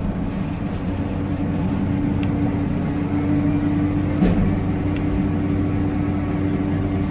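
Sany SR155 rotary drilling rig's engine running at a steady speed, a constant hum, with a single short knock about four seconds in.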